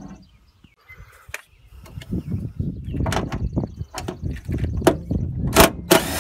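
Hand tools clattering against metal: a string of sharp clicks and knocks, starting about two seconds in after a quiet start.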